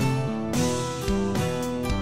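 Instrumental background music: pitched notes changing over a recurring beat.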